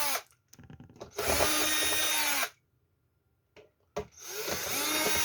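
Power screwdriver running in short bursts, backing out the casing screws of a Samsung One Connect box. One run stops just as the sound begins, a second lasts about a second and a half, and a third starts near the end. In each run the motor whine rises in pitch as it spins up and falls as it stops.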